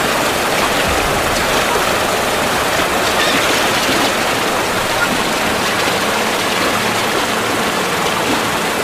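Rushing white water of river rapids, a steady loud churning without break.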